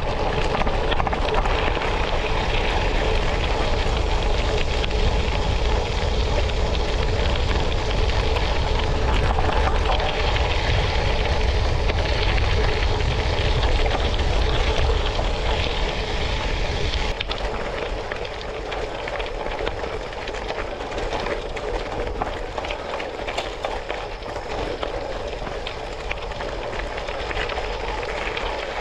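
Steady rolling noise of a vehicle travelling over a gravel road, easing down somewhat about seventeen seconds in.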